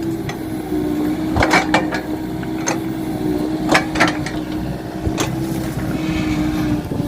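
Komatsu PC45 mini excavator's diesel engine running with a steady hum, broken by about six sharp knocks and clunks as it works in the ditch.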